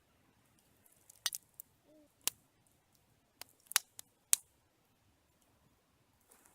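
Campfire crackling: a handful of sharp, separate pops and snaps, bunched in the middle, over a quiet background.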